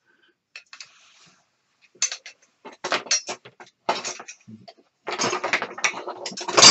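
Hand tools being picked up, moved and set down on a workbench: scattered knocks and clinks that grow into a busier clatter toward the end.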